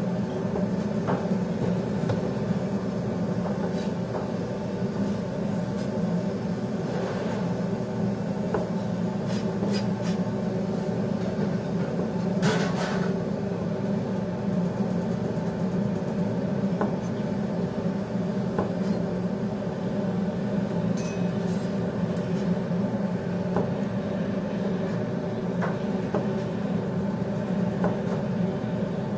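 A steady low drone of kitchen machinery runs throughout. Over it come light knife clicks and cuts against a plastic cutting board every few seconds as kiwi fruit is peeled and sliced, with a brief louder scrape about twelve seconds in.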